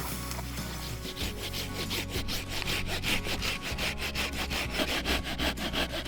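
Fast, even rasping strokes on wood, like a hand saw cutting, starting about a second in, over a steady low hum.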